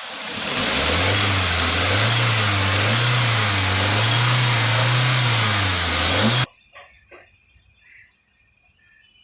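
Volkswagen Vento petrol engine being revved up and down in a steady rhythm, a rise and fall every second or so, with a loud hiss over it. It runs without misfiring now that a jammed fuel injector has been fixed. It cuts off abruptly about six and a half seconds in.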